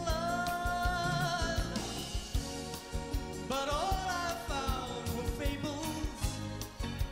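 Live pop band performance: a male singer holds a long note, then slides up into another held note about three and a half seconds in, over drum kit and band.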